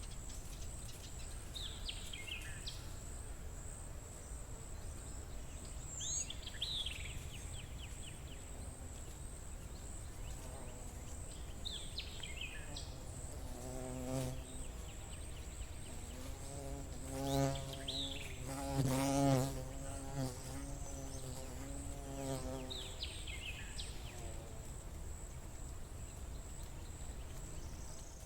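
A flying insect buzzing close by, its low droning hum swelling and bending in pitch as it passes, loudest a little past the middle. Short descending bird chirps come now and then, over a steady high, faintly pulsing insect tone.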